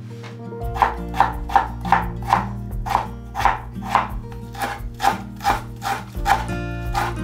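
Chef's knife cutting cucumber and shiso leaves into thin strips on a bamboo cutting board: an even run of knocks, about two a second, starting just under a second in.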